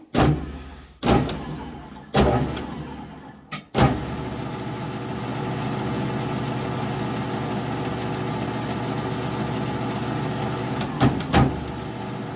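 Metal lathe jogged at its lowest speed: the motor kicks on with a clack and runs down four times in quick succession. It then runs steadily as a die in a tailstock holder cuts a thread on an O1 tool steel rod, with two short clicks near the end.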